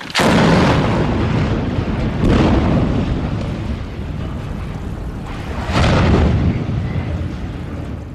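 Explosive demolition charges going off on a tall steel gantry crane: a sharp blast and a long rumble. A second loud burst comes about two seconds later, and a third, heavy crash about six seconds in as the crane's severed legs hit the ground, fading out near the end.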